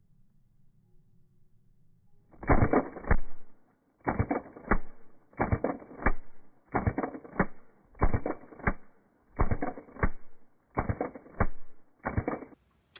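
WE-Tech Desert Eagle gas blowback airsoft pistol firing a string of about eight shots, starting a couple of seconds in, one every second and a half or so. Each shot is a short cluster of clicks and pops from the gas burst and the slide cycling, and all of them sound dull and muffled.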